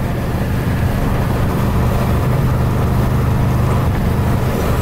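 Car driving at highway speed: a steady low engine drone over road and wind noise, heard from inside a moving car.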